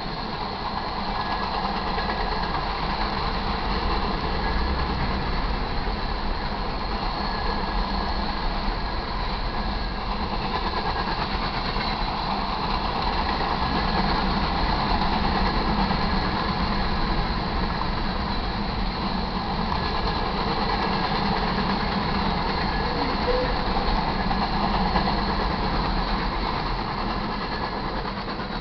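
Freight cars of a manifest train rolling past close by: a steady rumble and rattle of steel wheels on rail, tailing off near the end as the last cars go by.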